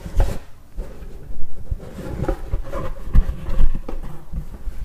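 Cardboard subscription box being opened by hand and its contents handled: irregular knocks and thumps with rustling between them, loudest about a second and a half in and again around three seconds.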